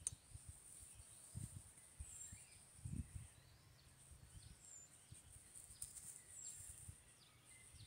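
Near silence outdoors: faint, scattered short high bird chirps, with a few soft low thumps about one and a half and three seconds in.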